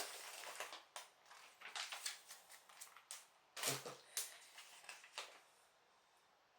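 Light clicks and rustles of LEGO parts and plastic parts bags being handled on a table, with one louder knock about three and a half seconds in.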